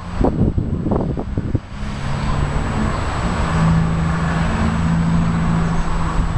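Knocks and wind rumble on the microphone, then from about two seconds in a motor vehicle's engine running steadily, a low hum that shifts slightly in pitch.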